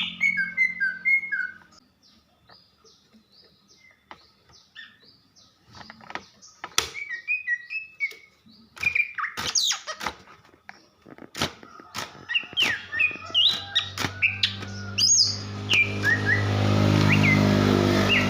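Female greater green leafbird calling: a busy run of short chirps, whistled slurred notes and sharp clicks, the kind of calling used as a lure to rouse a male into song. Near the end a low musical backing swells in underneath.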